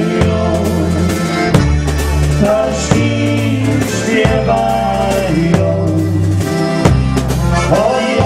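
Live dance band playing a waltz: a man singing into a microphone over electric bass guitar and a drum kit.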